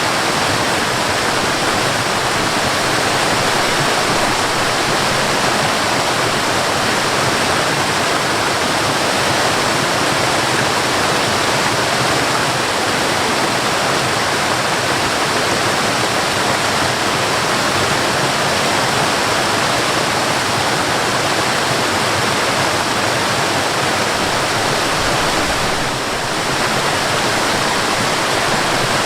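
Waterfall pouring steadily, a loud, even rushing of falling water.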